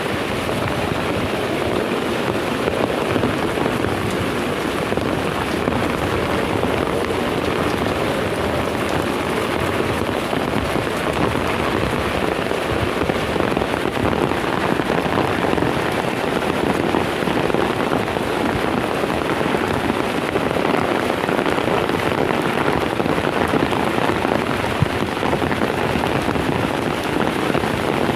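Heavy rain falling steadily, a dense, even hiss of rain on surfaces with no letup.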